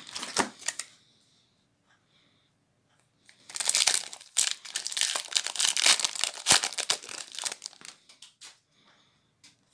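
Foil Magic: The Gathering booster pack wrapper being torn open and crinkled by hand. The loud crinkling starts about three and a half seconds in and dies away around eight seconds, after a few short crackles in the first second.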